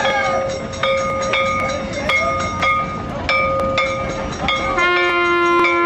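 Temple bells struck repeatedly, about twice a second, each stroke ringing on over a steady held tone. Near the end a deeper-ringing bell joins in.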